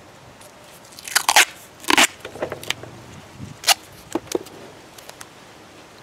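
Duct tape being pulled off the roll and torn: several short ripping sounds over a few seconds.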